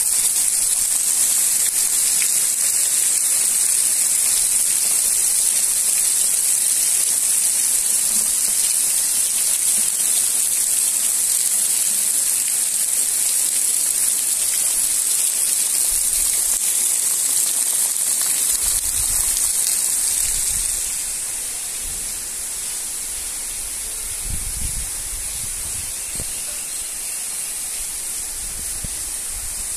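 Heavy tropical rain falling steadily, a dense even hiss that becomes softer about twenty seconds in; a few low thumps in the second half.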